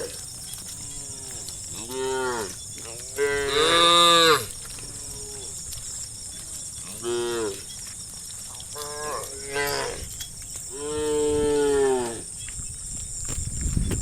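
Cows mooing, several separate drawn-out calls one after another, the loudest about three to four seconds in. A low rumbling noise builds near the end.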